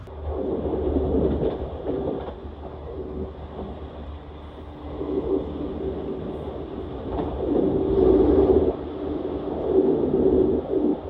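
Limited Express Shinano electric train running, heard inside a passenger car: a steady low rumble with mid-pitched humming tones that swell and fade several times.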